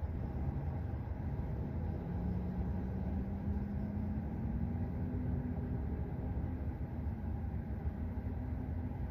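Road and tyre noise inside the cabin of a moving Tesla Model 3: a steady low rumble, with a faint hum that slowly rises in pitch from about two seconds in.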